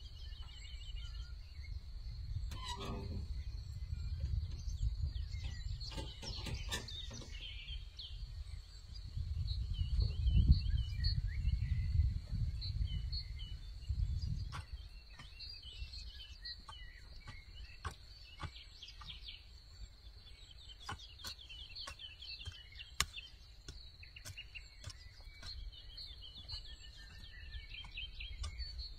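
Small birds chirping and calling throughout, over a steady high-pitched hum, with wind rumbling on the microphone from about nine to fifteen seconds in and a few scattered sharp clicks.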